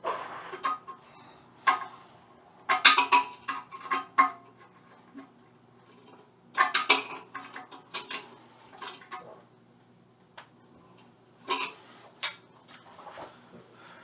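Irregular bursts of metal clinks and rattles from a wrench and hardware while bolts on a toilet are tightened down a little at a time, with pauses of a second or more between bursts.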